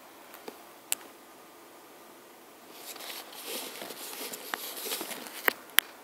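A failed hard drive clicking: a few sharp single clicks, then about three seconds of rustling and scraping noise with more clicks, the loudest two near the end.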